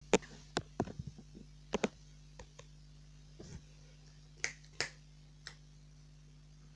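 Sharp, irregular clicks of fingertips tapping a tablet's touchscreen, about fifteen of them, over a faint steady hum; they stop about five and a half seconds in.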